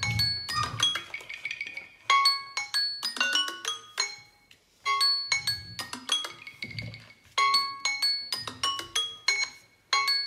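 Samsung Galaxy S10e timer alarm ringing: a short, bright, marimba-like chiming melody repeated about every two and a half seconds, signalling that the countdown has run out.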